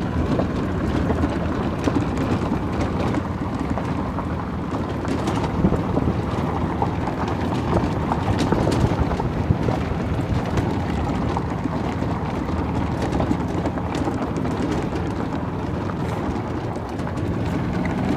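Golf cart driving along a gravel road, its tyres crunching and clicking over the stones, with steady wind noise on the microphone.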